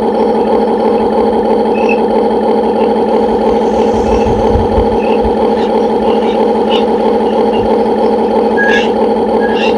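Radio-controlled model excavator running with a steady, unchanging motor whine. A few low thuds come about four to five seconds in.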